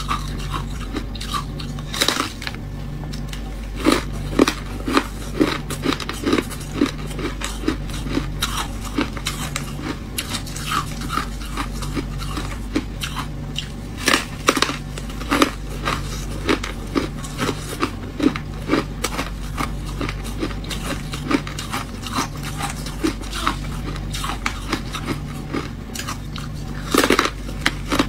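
Close-up crunching of refrozen freezer frost being bitten and chewed: dense, irregular crackling crunches throughout, with louder bites every few seconds.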